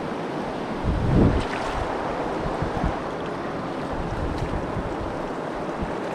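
Steady rushing noise of flowing river water, with wind on the microphone and a brief low thump about a second in.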